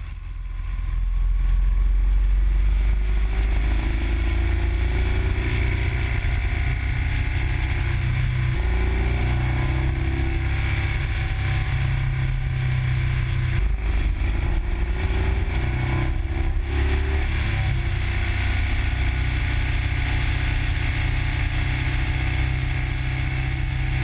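Motorcycle engine running at road speed, heard from on board the bike, with steady wind noise. The engine note rises and falls gently with the throttle.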